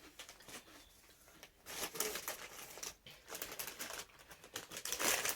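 Dry crackling crunches of cone-shaped cheese corn snacks being bitten and chewed, in two bursts: about two seconds in and again near the end.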